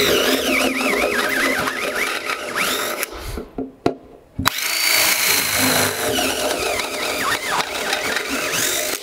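Power drill running a step bit through an aluminum insert, with a wavering high-pitched squeal from the bit cutting the metal. It runs in two long bursts, with a pause of about a second near the middle.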